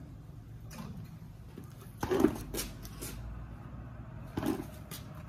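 Laundry being hung on a line: two short sounds of clothes and hangers being handled, about two seconds apart, the first the louder.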